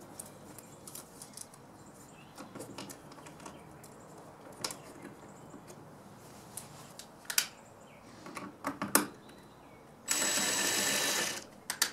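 Light clicks and knocks as wires and a wall switch are pushed into a plastic electrical box. About ten seconds in, a cordless drill runs for a little over a second, driving the switch's mounting screw into the plastic box, followed by a couple of sharp clicks.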